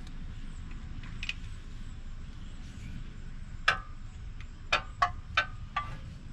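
Metal tools clinking as a socket, extensions and a long ratchet are fitted onto a bolt through a car's wheel well: one sharp metallic clink about a second in, then an irregular run of five or six more in the second half, over a low steady rumble.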